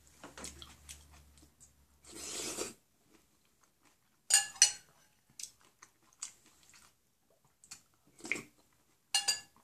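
Close-up eating sounds: short slurps and chewing of ramen noodles. A metal fork clinks against the glass bowl a few times.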